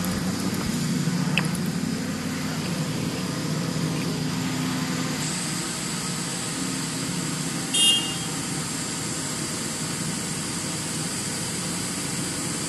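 Diesel engine of a Zoomlion ZR185 rotary piling rig running steadily, with one brief high-pitched squeak about eight seconds in.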